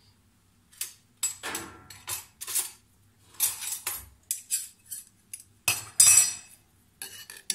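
Steel spoon clinking and scraping against clay bowls of thick rice kheer, in a string of short strokes and scrapes, the loudest about six seconds in.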